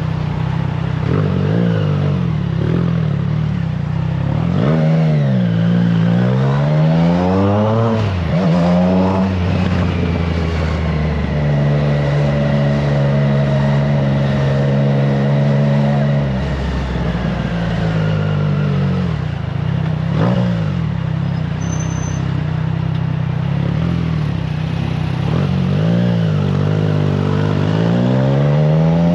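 Triumph Trident 660's inline three-cylinder engine running through an aftermarket FireTong exhaust under way. It revs up in several climbs in pitch, each dropping back at a gear change, holds a steady note in the middle, eases off, then pulls up again near the end, with wind rushing over the microphone.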